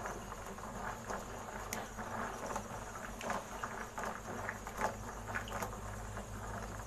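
A hand swishing dried apricots around in a glass bowl of water to wash them: soft, irregular splashes and sloshes.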